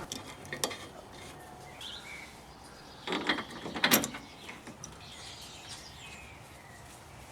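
Hand ratchet wrench clicking in a short quick run about three seconds in, driving in the bolts that hold the steering stabilizer bearing to the frame, with a few scattered clicks before it.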